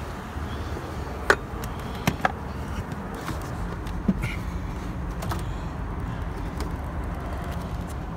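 Car driving, heard from inside the cabin: a steady low road and engine rumble. A few sharp clicks or knocks come about a second in, twice around two seconds, and once more near four seconds.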